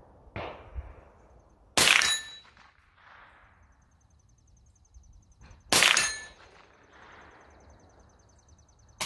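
Ruger .22 rifle fired twice, about four seconds apart. Each sharp crack comes with a brief metallic ring, the steel target being hit.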